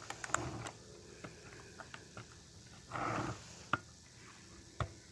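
Light clicks and taps of objects being handled, with one short breathy rush about three seconds in.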